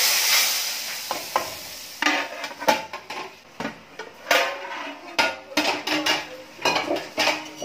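Hot ghee tempering with cumin seeds and dried red chillies poured into besan kadhi, sizzling loudly at the start and dying away over about two seconds. After that come several metal clanks and scrapes as a steel plate lid is set on the pan and lifted off.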